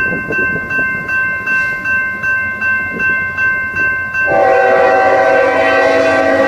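A bell ringing about two and a half strikes a second. From about four seconds in, the horn of the lead BNSF locomotive on an approaching coal train sounds a long, steady blast over the bell.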